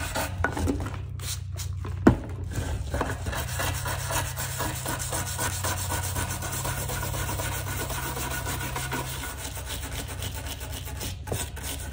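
Small wire brush scrubbing rapidly back and forth over wet, puttied veneer, a continuous scratchy rubbing that works old wood putty off the surface. A single sharp knock about two seconds in.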